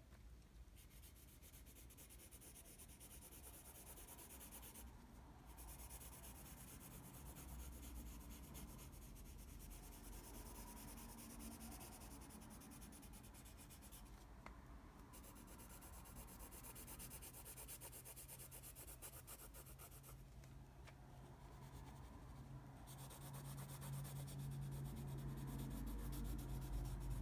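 Graphite pencil shading on paper: a faint, steady scratching of the lead rubbing back and forth, pausing briefly a few times when the pencil lifts.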